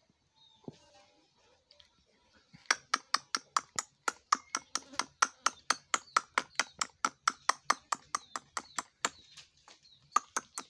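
Rose-ringed parakeet giving a fast series of short, sharp calls, about five or six a second. It starts about a third of the way in, breaks off briefly near the end, and starts again.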